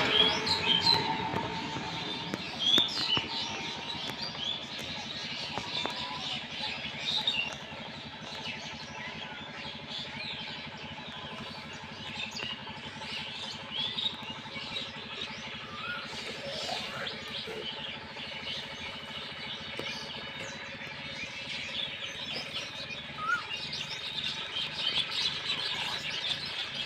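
Many small birds chirping and twittering in quick short calls throughout, over a faint steady background noise.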